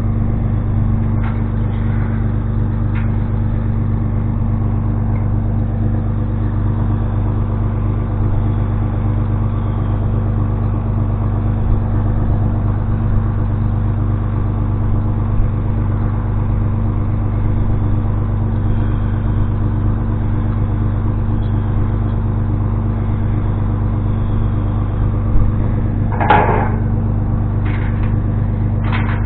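An engine running steadily at idle, with a few faint clicks and a brief louder scrape or clatter near the end.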